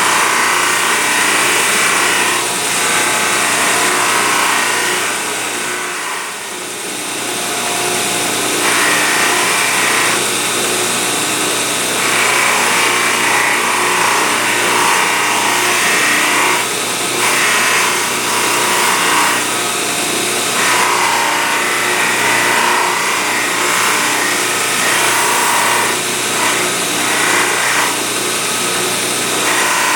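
A power tool's abrasive running steadily, with a piece of stainless steel pressed against it in repeated spells of a few seconds each, a harsh grinding rasp over a steady motor hum: the brooch being ground or polished.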